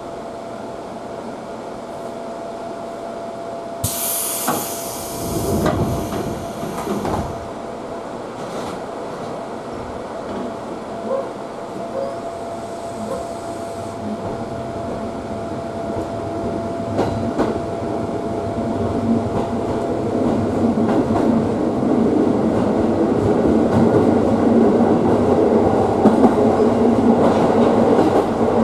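Electric commuter train heard from inside a passenger car. A steady hum is broken by a short hiss of air about four seconds in and a few knocks. The running noise then grows steadily louder as the train gathers speed along the rails.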